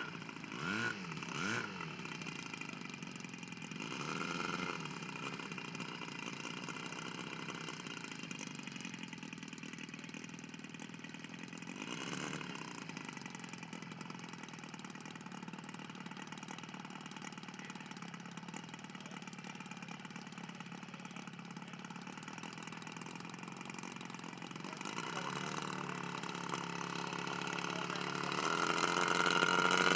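Engine of a radio-controlled model airplane running in flight, its pitch swooping up and down as the plane passes. Near the end the engine gets much louder with a fast-rising pitch.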